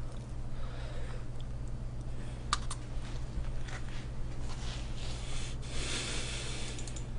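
Small handling noises, a few sharp clicks and a brief rustle near the end, over a steady low electrical hum.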